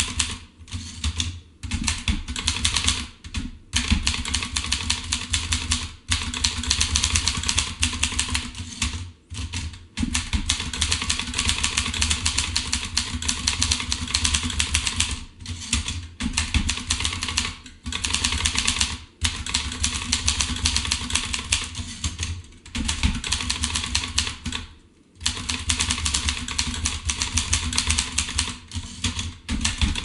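Groma Kolibri portable manual typewriter being typed on at a fast, steady pace: a dense clatter of keystrokes broken by short pauses, with the carriage pushed back for a new line about halfway through.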